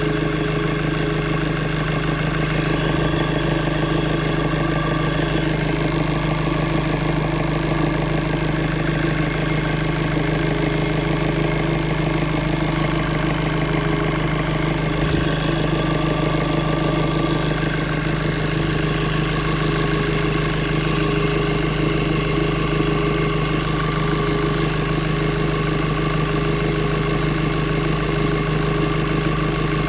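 Turbocharged engine idling steadily, with a steady whistle above the engine note. This is the turbine whistle and vibration that is put down to resonance.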